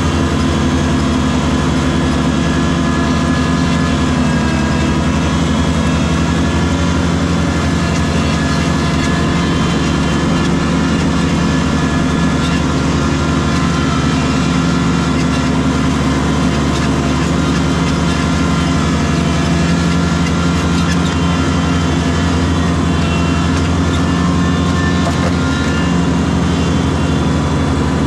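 Tractor engine running steadily at a constant speed, with no change in pitch or level.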